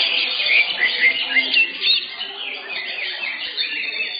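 Many caged green leafbirds (cucak hijau) singing at once, a dense overlapping chatter of chirps and quick whistled phrases, with a murmur of voices underneath.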